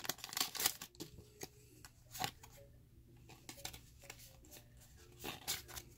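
Pokémon trading cards being slid out of a freshly torn foil booster pack and flicked through by hand: faint rustles and scattered light clicks of card against card.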